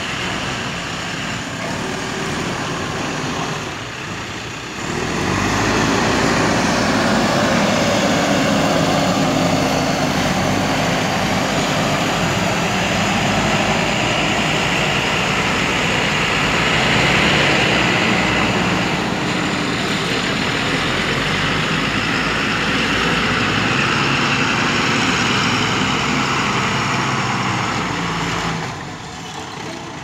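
Diesel engine of a JCB 3DX backhoe loader running as it works soil. The engine gets clearly louder about five seconds in and drops back near the end.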